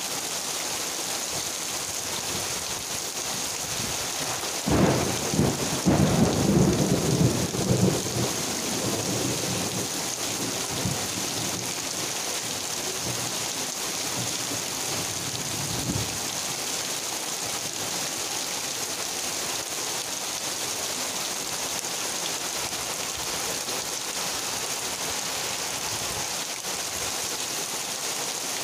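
Heavy rain pouring steadily, with a roll of thunder about five seconds in that lasts a few seconds, and a shorter, fainter rumble around the middle.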